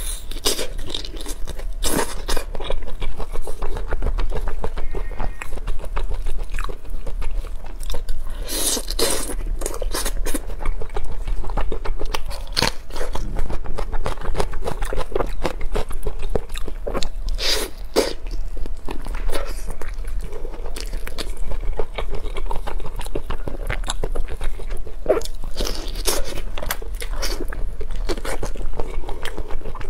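Biting into and chewing sesame-coated chicken wings, with scattered sharp bites throughout and the wings being pulled apart by hand.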